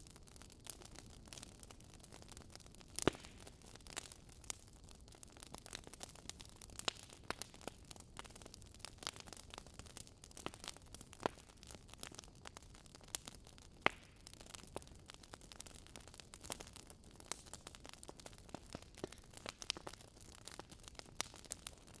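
Faint crackling of a wood fire, with irregular sharp pops and snaps over a soft hiss.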